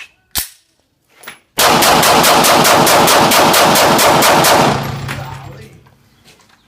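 Gunfire: a single shot, then about a second later a rapid string of about twenty shots at roughly six or seven a second, lasting about three seconds before stopping and echoing away.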